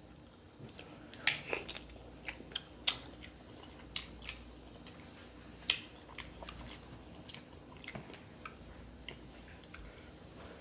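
Eating a seafood boil up close: wet chewing and mouth smacks, with scattered sharp clicks, the loudest about one, three and six seconds in.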